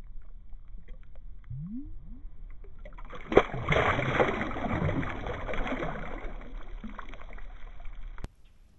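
Water churning and splashing around a kayak. It starts with a sharp knock about three seconds in, runs loud and even for several seconds, and cuts off abruptly near the end.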